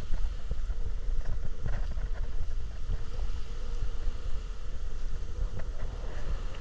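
Wind buffeting the microphone in an uneven, gusty rumble, with a faint steady hum underneath.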